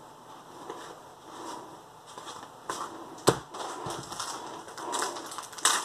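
Crinkling and rustling of a 1994 Fallen Empires booster pack wrapper being handled. It is faint at first and gets louder with crackles from about three seconds in, with one sharp crackle.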